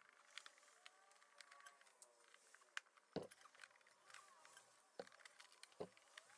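Faint scattered clicks and taps of a hand tool prying at the plastic wheel-liner fasteners in a car's rear wheel well, with a few louder knocks, the loudest about three seconds in.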